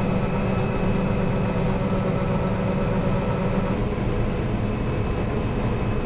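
John Deere 9770 STS combine harvester running, heard from inside its cab: a steady low machinery drone with faint higher whines, some of which drop out about four seconds in.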